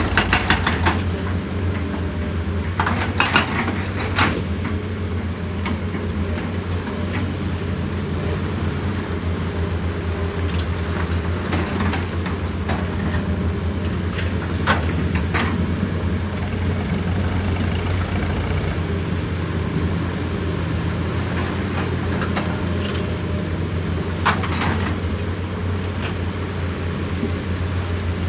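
Excavator's heavy diesel engine running steadily with a deep hum, broken by several short clatters, the strongest in the first few seconds and again about a quarter of a minute in and near the end.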